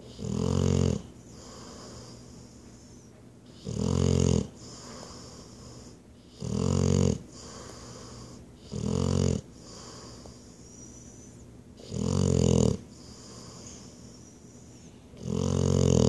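A large black dog snoring in its sleep: six loud snores, one every three seconds or so.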